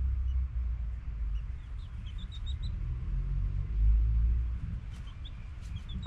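Short, high bird chirps in quick runs of several notes, twice, over a steady low rumble.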